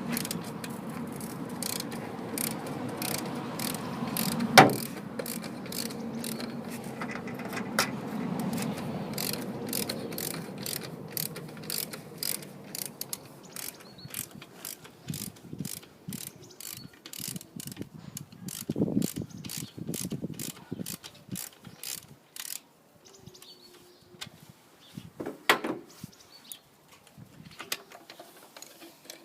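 Ratchet wrench clicking steadily at about two clicks a second as bolts are turned, with one loud metallic knock about four and a half seconds in; the clicking stops a little over twenty seconds in, followed by scattered tool clatter.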